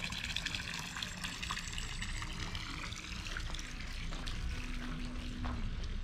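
Steady pouring and trickling of fresh running water fed into an ornamental carp pool.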